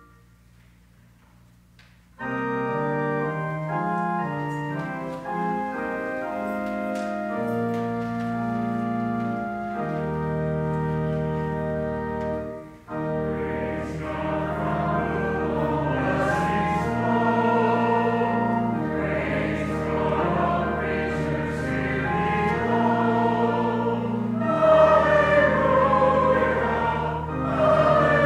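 A pipe organ comes in about two seconds in with sustained chords. From about halfway, a congregation joins in singing a hymn with the organ, and the singing grows louder near the end.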